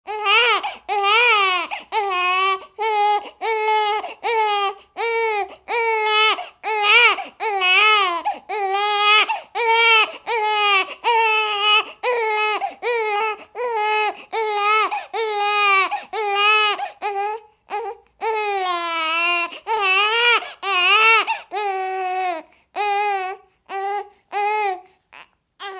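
Baby crying: a steady run of high-pitched wailing cries, about one a second, each broken off by a quick breath, with the cries growing shorter near the end.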